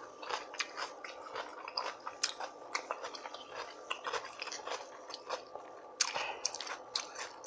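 Close-miked chewing: wet mouth clicks and squishes with occasional crunches, a little louder about six seconds in.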